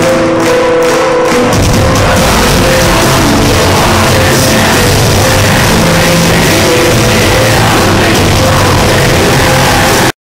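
A live heavy metal band playing loud in a concert hall, with guitars, drums and vocals. About a second and a half in, the sound jumps to a different passage, and it cuts off suddenly near the end.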